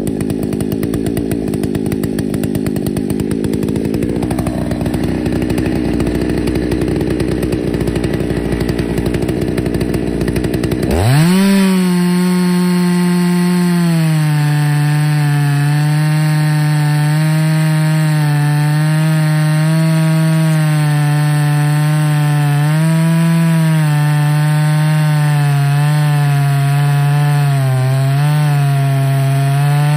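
Ported Husqvarna 288XP two-stroke chainsaw in an Alaskan chainsaw mill, first idling low, then about a third of the way in revving sharply to full throttle. It holds there while ripping a slab from a white oak log, its pitch wavering slightly under the load of the cut.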